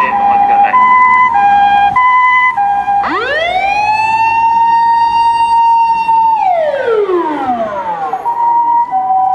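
Toyota Granvia ambulance's electronic siren on emergency run. It alternates two tones about twice a second in the Japanese 'pee-po' pattern. About three seconds in it switches to a wail that rises quickly, holds steady for about three seconds and glides back down, the wail Japanese ambulances add when entering an intersection. Near the end the two-tone pattern resumes.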